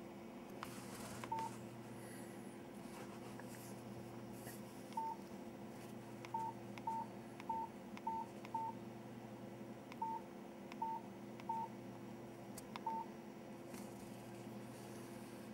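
Mobile phone keypad tones from a Nokia 3720: about eleven short beeps, all at the same pitch, coming at uneven intervals as keys are pressed, over a faint steady hum.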